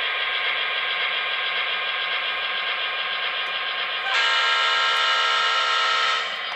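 MTH HO-scale GP35 model locomotive's onboard sound system playing a diesel prime mover running steadily through its small speaker, then a single steady horn blast about four seconds in that lasts about two seconds and cuts off.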